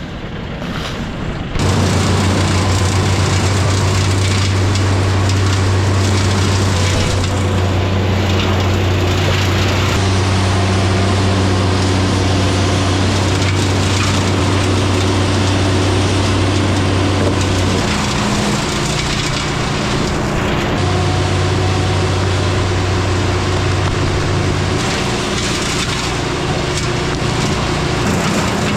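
Wood chipper running steadily under load as branches are fed through, with wood cracking and splintering over the engine drone; the pitch shifts a couple of times about two-thirds of the way in.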